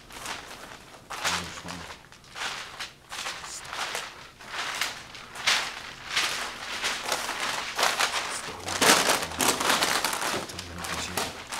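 Irregular rustling and scuffing noises, coming every half second to a second and loudest near the end, with a few brief, faint voice fragments.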